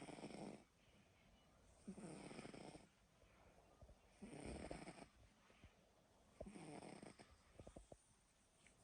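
Snoring in deep sleep: a steady rhythm of snores, each about a second long, one every two seconds or so.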